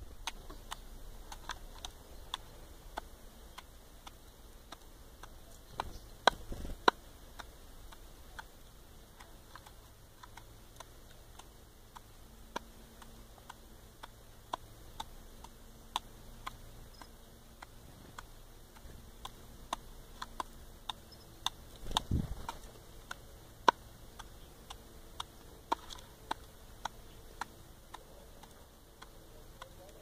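Male common blackbird pecking at rolled oats in a plastic bowl: irregular sharp clicks of its bill striking the flakes and the bowl. A few duller thumps come about six seconds in and again about twenty-two seconds in.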